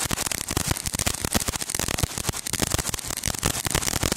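Small tube firework on the pavement spraying sparks and shooting stars, with a dense, rapid crackling of many small pops.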